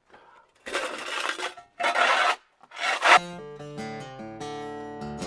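Three scraping strokes in dry chaff and grain as it is scooped up. Acoustic guitar music starts about three seconds in.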